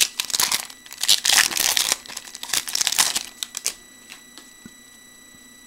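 A trading-card pack wrapper crinkling as it is torn open and handled, in a run of sharp crackles lasting nearly four seconds that then stops. A faint steady high-pitched whine from a PC fan runs underneath.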